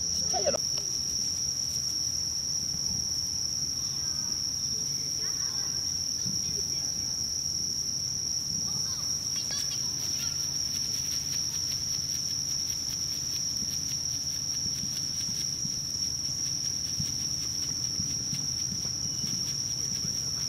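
A steady chorus of night insects, crickets' continuous high-pitched trill held without a break, over a faint low hum.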